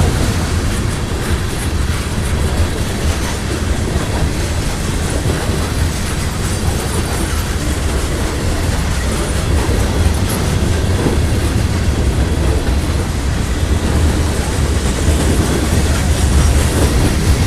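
Freight cars of a grain train rolling past, a steady rumble of steel wheels running over the rails.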